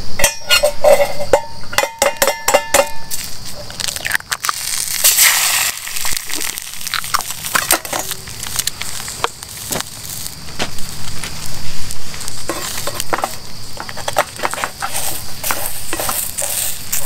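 Metal clinks and taps ringing off a carbon steel pan, then an egg sizzling as it fries in the hot pan, with a spatula scraping at it near the end. The egg is sticking to the unbuttered pan.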